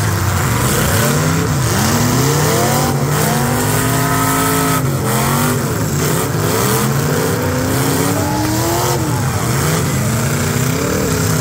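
Several demolition derby cars' engines revving hard at once, their pitch rising and falling again and again as the cars spin and shove each other.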